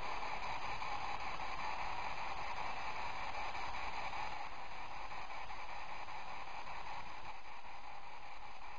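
Steady hiss of background noise with no distinct sound in it: quiet room tone raised by the recorder's gain.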